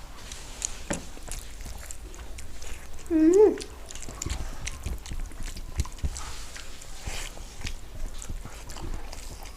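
Close-up eating sounds: chewing and wet lip-smacking with frequent small clicks as rice and curries are eaten by hand. About three seconds in, a short voice-like sound rises and falls in pitch, louder than the rest.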